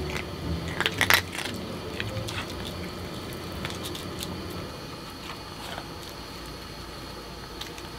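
A poodle eating dry food from a stainless steel cup, giving crunches and clinks against the metal. The loudest cluster comes about a second in, with sparser, softer clicks after it.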